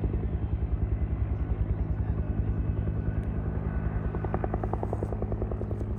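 Helicopter rotor chopping in a fast, even beat, with a sharper blade slap standing out for about a second past the middle, growing slightly fainter near the end.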